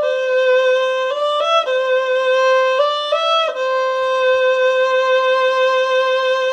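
A German violin bowed solo in a slow melody: held notes with two short quick upward turns in the first half, then one long held note from about halfway on.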